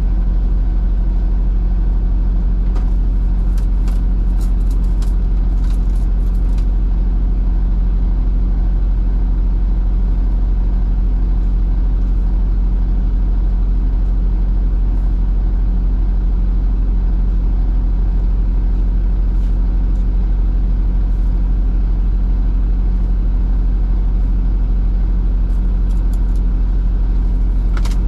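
Semi truck's diesel engine running steadily, heard from inside the cab, with a few light clicks or rattles a few seconds in and again near the end.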